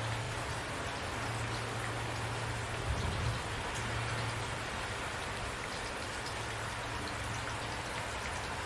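Steady rain falling, with scattered drops pattering on a surface and a low hum underneath; a couple of soft low thumps about three seconds in.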